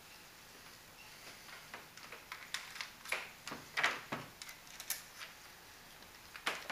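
Irregular light clicks and knocks of hardware and tools being handled while the mounting plate's bolts are fastened, with no power tool running.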